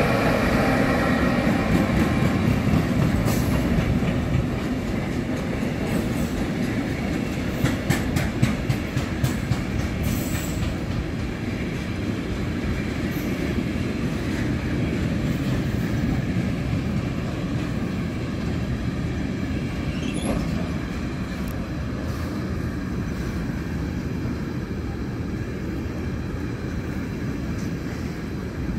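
Intermodal freight train of pocket wagons loaded with lorry trailers rolling past: a steady rumble of wheels on rail, with clusters of sharp clicks as the wheels cross rail joints. It is loudest at the start and slowly eases off.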